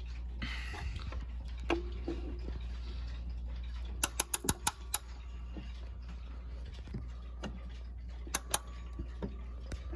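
Hermle 341-020 mechanical clock movement being wound slowly with a key: the winding ratchet clicks irregularly. There is a quick run of about five clicks about four seconds in and a few more near the end, over a steady low hum.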